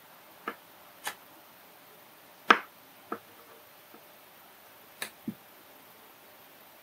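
Metal tweezers making six short, sharp clicks, the loudest about two and a half seconds in, while picking tiny surface-mount LEDs up off the desk.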